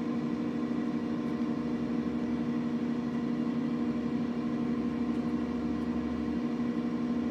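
Microwave oven running, a steady, even hum with no change in pitch.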